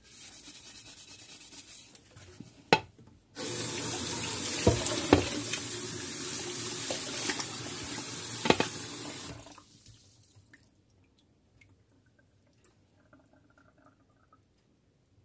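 A glass pan lid wiped with a microfibre cloth in quick strokes, then a sharp click as the kitchen tap is turned on and water runs onto the lid for about six seconds, with a few knocks as the lid is turned under the stream. The tap shuts off and only faint drips follow.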